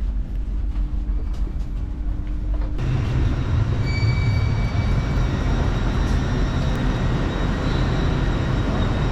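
Passenger train running, a steady rumble that turns suddenly louder and fuller about three seconds in.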